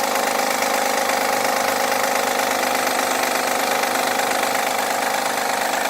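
2011 Honda Accord engine running cold at a steady idle with a loud, even mechanical noise that sounds like an engine out of oil, though the oil is not low; the noise comes only when the engine is cold.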